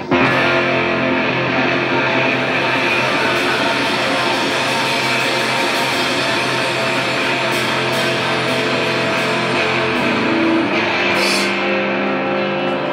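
Live rock band playing loudly: electric guitar and drum kit together in a dense, steady wall of sound, with cymbal crashes.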